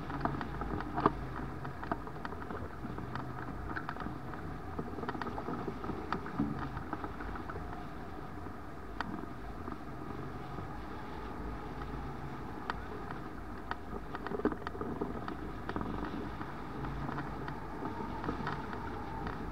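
Air rushing past an Icaro 2000 RX2 hang glider in flight: steady wind noise with a low rumble, and a few scattered light clicks.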